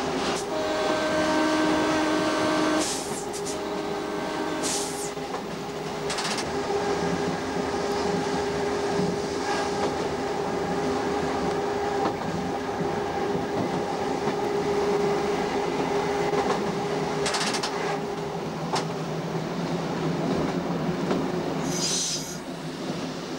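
Railcar running along the track, heard from inside the driver's cab: steady running noise with a constant hum. A held pitched note sounds for about two seconds near the start, and a few short high screeches come through now and then.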